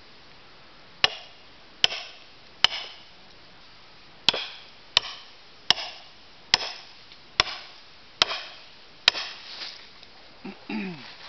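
Steel splitting wedge struck hard ten times with a splitting maul, sharp metal-on-metal blows each with a short ring, as the wedge is driven into a red spruce round to split it. The first three blows come about 0.8 s apart, then after a short pause seven more follow at the same pace.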